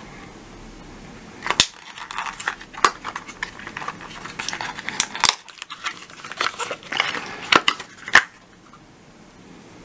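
Cardboard and plastic packaging handled by hand: irregular rustling and crinkling with sharp clicks and taps, starting about a second and a half in and stopping near the end.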